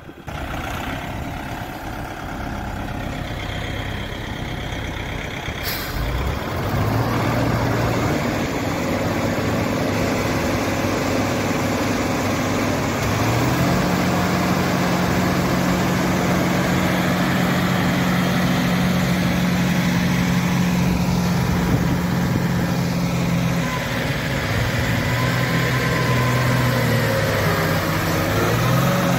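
Diesel engines of a Kubota tractor and a loaded tipper truck running hard as they work to pull the truck out of soft ground: the engine note rises about six seconds in, holds steady through the middle, and climbs again near the end. A brief hiss about six seconds in.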